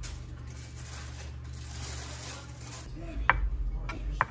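Butter knife scraping across a slice of toasted banana bread as butter is spread, then two short clinks of the knife against a dish near the end.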